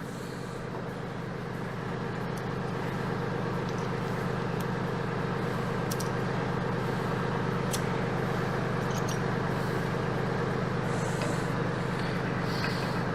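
Mahindra 1526 compact tractor's diesel engine running steadily, growing a little louder over the first few seconds, with a few faint clicks.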